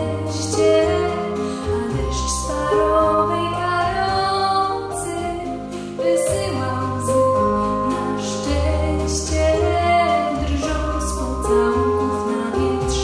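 Young woman singing a Polish-language song into a microphone over instrumental accompaniment, with held bass notes under the melody.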